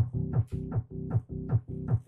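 Fast freetekno beat played live on a Korg Electribe EMX groovebox: a kick drum that drops in pitch on every beat, about two and a half beats a second, over a held, buzzing bass synth line, with short hissy percussion hits above.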